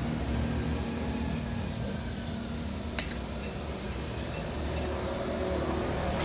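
Steady low background rumble, with a single sharp clink of an eating utensil against a dish about three seconds in.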